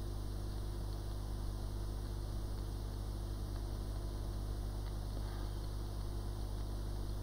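Hot air rework station blowing over the phone's logic board: a steady hiss with a low hum underneath, as the touch IC is heated back into place on the iPhone 6 Plus board.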